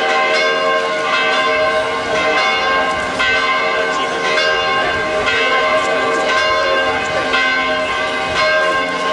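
Church bells ringing, struck again about once a second, their mixed tones hanging on between strikes.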